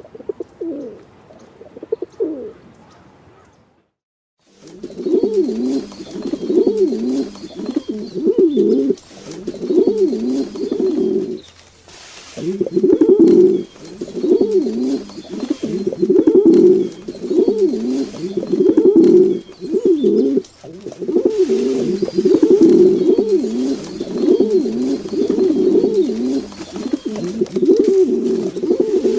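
Pigeons cooing: a couple of soft coos, a brief dropout about four seconds in, then steady, repeated cooing phrases, one after another.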